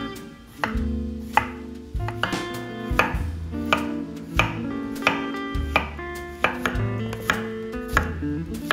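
A knife chopping on a cutting board at a steady pace, about one cut every three-quarters of a second, over background music.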